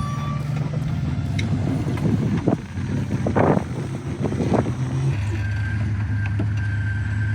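Jeep engine running steadily at low revs while crawling down a steep off-road drop, with a few short rough noises in the middle; its pitch drops slightly about five seconds in.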